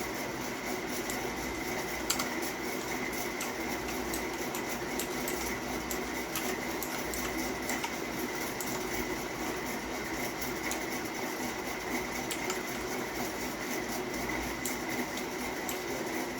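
Rapid, continuous clicking of a Havit KB498L mechanical keyboard's blue switches as keys are pressed in quick succession, a dense steady clatter.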